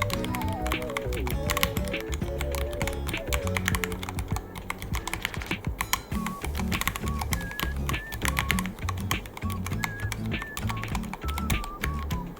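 Rapid, irregular keystrokes on a Ducky One 3 mechanical keyboard, with background music carrying a simple melody and a steady bass beat.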